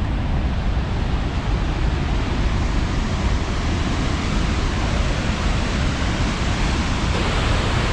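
Upper Yosemite Fall: a loud, steady rush of falling water.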